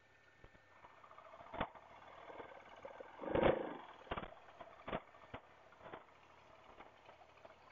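Triumph Tiger 1200's three-cylinder engine running low and quiet as the motorcycle rolls slowly over bumpy grass, with several sharp knocks and one louder short burst about three and a half seconds in.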